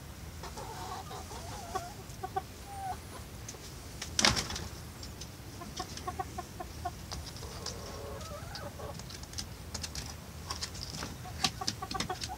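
Barred Rock and Australorp hens clucking in short runs of notes, with scattered clicks and one sharp knock about four seconds in.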